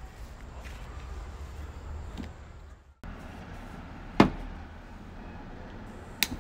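Low steady outdoor rumble. After a break, a single knock as a gas-canister lantern is set down on a wooden table, then near the end a sharp click from a piezo lighter's igniter as it sparks to light the lantern.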